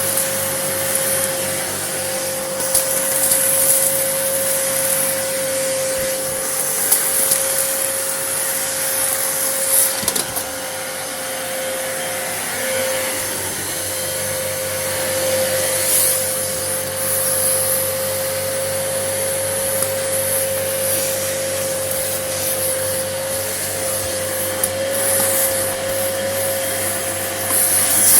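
Vacuum cleaner running steadily, its motor holding a constant whine over a rush of air. The hiss swells now and then as it sucks up dust and grit.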